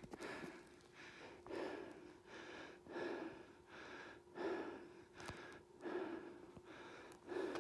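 A person breathing hard while climbing stairs, with regular in-and-out breaths and a strong puff about every second and a half.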